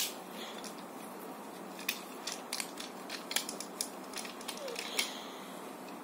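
Plastic parts of a Tobot transforming toy car clicking and snapping as they are turned and fitted by hand: an irregular string of short sharp clicks.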